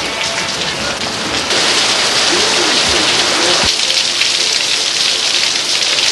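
Heavy rain falling hard on roofs and pavement, a loud steady hiss that grows louder about a second and a half in.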